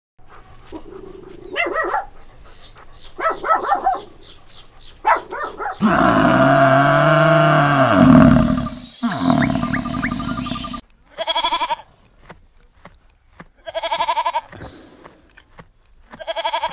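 A cow mooing with one long, low call about six seconds in, then a goat bleating three times. Shorter animal calls come before the moo.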